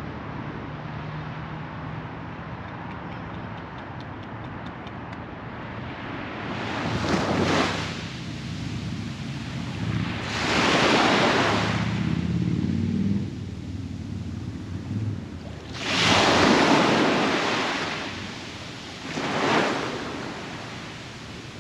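Sea waves breaking and washing up a sandy beach: a steady wash of surf with four swells of breaking waves, the loudest about eleven and sixteen seconds in.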